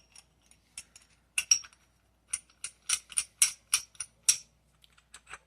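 Small metal parts of a Milwaukee hole saw arbor clicking and clinking as they are handled and fitted together. Sharp metallic clicks, scattered at first, then a run of about eight at roughly three a second in the middle.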